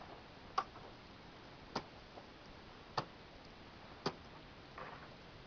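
Four sharp strikes of ice-climbing gear biting into steep glacier ice, about a second apart, as a climber front-points up the slope.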